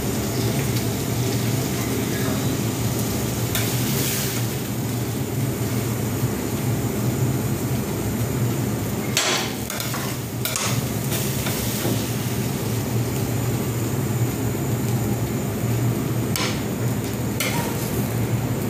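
Steady kitchen noise: a low hum with a hiss above it, broken by a few short knocks and clatters, once about four seconds in, a cluster around nine to ten seconds, and twice near the end.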